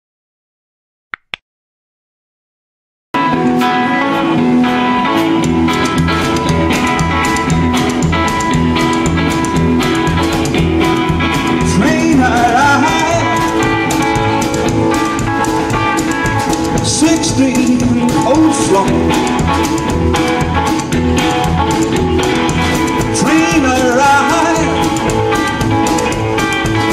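A quick double click about a second in, then a rockabilly band with guitar and drums starts up about three seconds in and plays an instrumental introduction with a steady beat.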